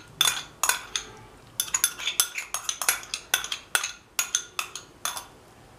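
Metal spoon clinking and scraping against a glass jar and a mortar as yogurt is scooped out into the mortar: a run of irregular sharp taps, a few a second, that stops shortly before the end.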